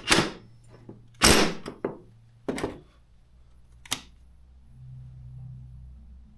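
A few sharp clanks and knocks of hand tools on the chainsaw's metal flywheel and nut as it is tightened down, the loudest about a second in.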